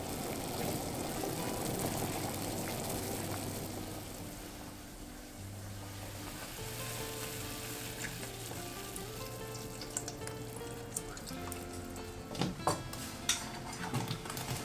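A pot of soup boiling, a bubbling hiss loudest in the first few seconds. From about ten seconds in comes a run of light clicks and knocks as luffa pieces are scraped off a steel bowl into the pot with a wooden spoon. Soft background music with held notes plays throughout.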